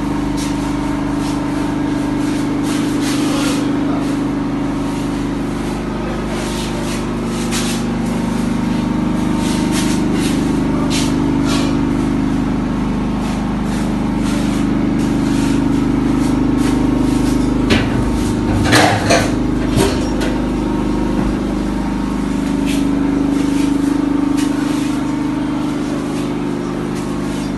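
A steady machine hum runs throughout, with scattered sharp clicks and knocks and a louder clatter about two-thirds of the way through.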